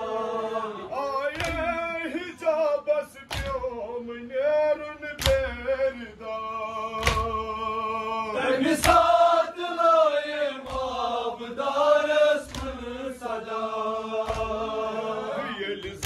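Men's voices chanting a Kashmiri noha, a mourning lament, in long wavering held notes. Sharp slaps of hands on chests (matam) land in time about every two seconds.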